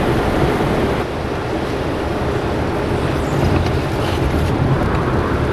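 Hurricane wind blasting the microphone: a loud, steady rushing noise with heavy low buffeting, shifting slightly about a second in.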